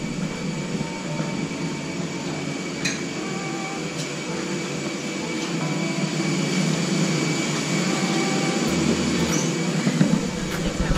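Steady rumble and high whine of a parked airliner and its ground air supply, heard from the jet bridge and the aircraft doorway, with a few light knocks.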